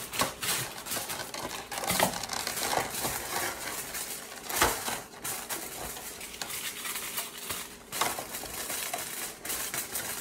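Hands handling small hard objects: irregular clicks and clatter with some crinkling.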